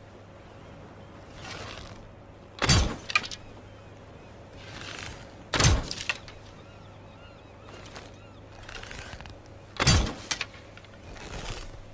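Bow being shot three times: a soft rustle, then a sharp snap of the string's release with a short rattle of smaller clicks after it.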